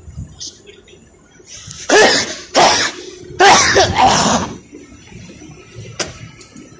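A person coughing hard, three harsh bursts in quick succession about two seconds in, with a sharp click near the end.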